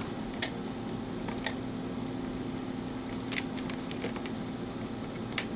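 A few light, sharp clicks and handling sounds as a 9-volt battery is fitted into a plastic RC car transmitter, over a faint steady hum.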